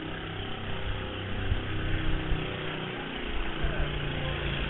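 Small motorbike engine running as it rides along the street past the camera, heard through a security camera's microphone with everything above the middle range cut off.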